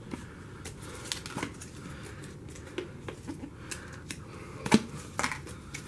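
Small plastic food containers being handled, with a lid prised off: a scatter of light plastic clicks and knocks, the sharpest about three-quarters of the way through.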